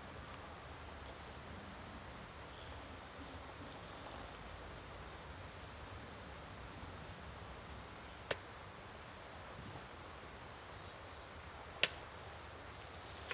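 Quiet woodland ambience: a low steady hiss with a few faint high chirps, broken by two sharp clicks about three and a half seconds apart, the second louder.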